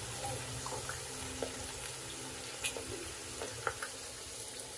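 Boneless chicken pieces frying in hot oil during their second fry: a steady soft sizzle with a few faint crackles.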